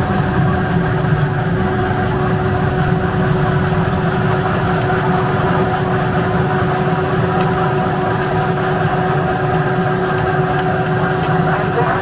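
Electric potato peeling machine running steadily, its motor giving a constant hum over the rumble of potatoes tumbling inside the drum, with water from a hose running into it.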